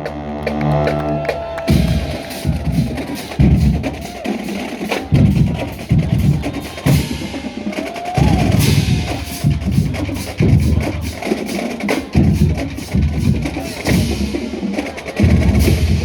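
Marching band drumline playing a cadence: repeated bass drum hits under sharp snare and rim clicks, after a held pitched chord that stops about a second and a half in.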